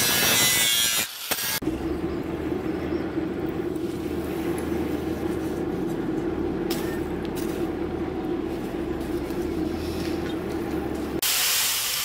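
An angle grinder with a sanding disc grinds a steel knife blade for about a second. Then a steady hum, the air blower of a charcoal forge running while the blade heats. Near the end comes a louder hiss as the hot blade is quenched in water.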